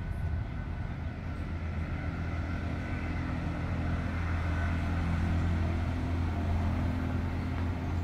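Engine of a three-wheeled auto-rickshaw running with a steady low hum, growing louder toward the middle as it passes and easing off near the end.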